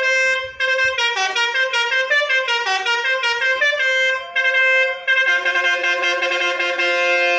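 Tour bus's Basuri telolet multi-tone air horn. It sounds a chord, then plays a quick tune of changing notes, then holds a long chord near the end.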